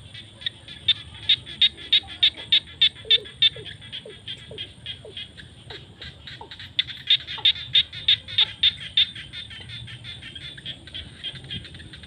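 A chorus of frogs calling: sharp, high-pitched calls repeated quickly throughout, rising twice into loud runs of about three calls a second, with a few short, lower falling notes among them.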